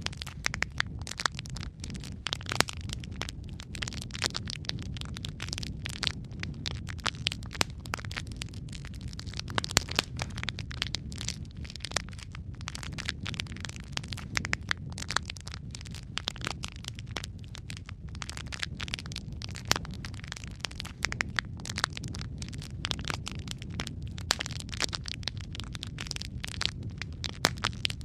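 Wood fire in a fireplace, logs burning with constant crackling and sharp pops over a low, steady rumble of flame.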